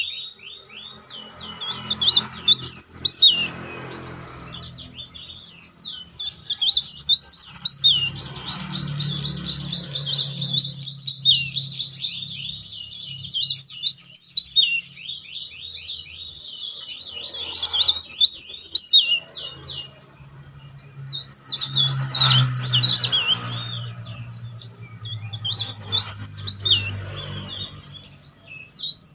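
A caged cikrak daun (leaf warbler) singing: phrases of rapid, high-pitched twittering and shrill whistling notes, each lasting a few seconds, repeated about seven times with short pauses between.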